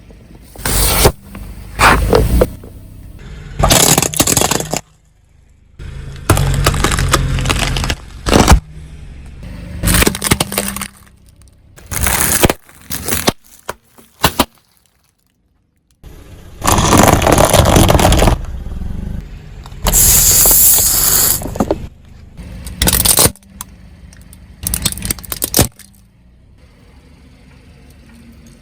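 Objects being crushed under a vehicle: about a dozen separate bursts of cracking and crunching, each a second or two long, with a moment of silence about halfway and a quieter close.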